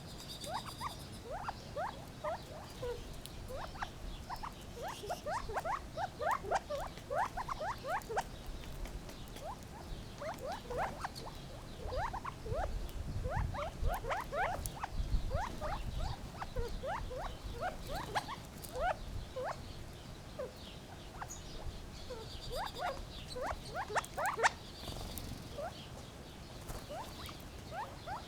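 Gambel's quail giving many short, squeaky chirping calls in irregular bursts throughout, with a low rumble in the middle.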